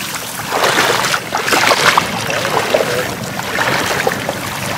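Knee-deep water splashing and swishing as a person wades through a flooded rice paddy, dragging a plastic tub through the water, in uneven surges with each stride.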